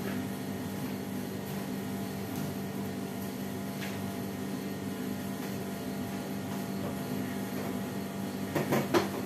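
Steady low machine hum, with a few sharp clinks and clatter near the end.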